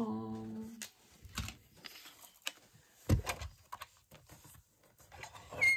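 Paper, card and craft tools being handled on a tabletop while a card is trimmed: a short hum at the start, then scattered taps and knocks, the loudest a dull thump about three seconds in, and rustling near the end.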